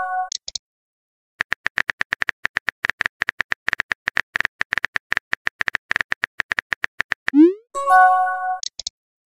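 Rapid keyboard tap clicks of a texting-story app as a message is typed, then a rising whoosh and a short multi-note chime as the message is sent. A second send chime is just fading out at the very start.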